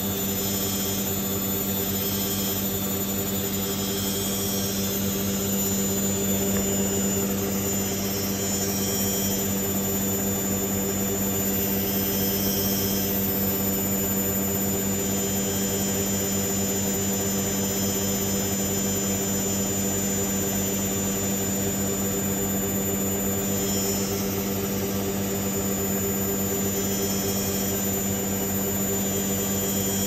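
Teco (Hoover-built) 9 kg front-loading washing machine spinning at a steady high speed, its motor and drum giving a steady whine at one pitch.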